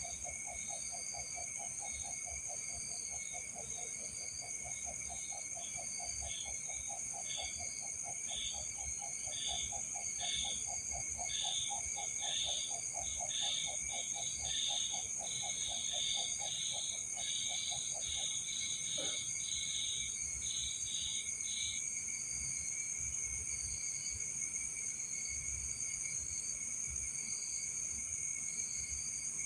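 Night chorus of insects and frogs: steady high-pitched insect trilling, a rapid low pulsing call that stops about two-thirds of the way through, and a run of chirps in the middle that grows louder and then stops.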